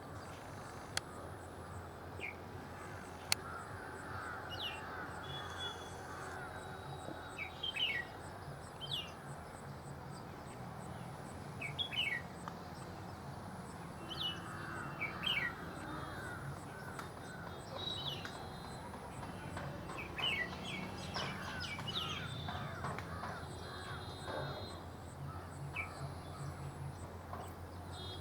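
Birds calling outdoors: short, sharp chirps every second or two over a steady background of further bird chatter and a low hum.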